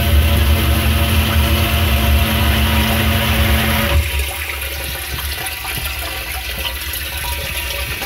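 Lift station sewage pump humming with water running and splashing into the tank. The hum cuts off about four seconds in and the water keeps running. Water entering from outside the inlet pipe while the pump runs is taken as the sign of a broken discharge pipe outside the tank.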